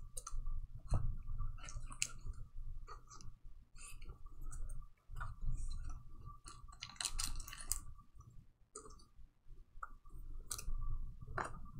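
Gloved hands handling trading cards, card packs and clear plastic holders: scattered clicks, taps and rustles of plastic and card, with a denser rustle about seven seconds in. A faint steady high hum sits underneath.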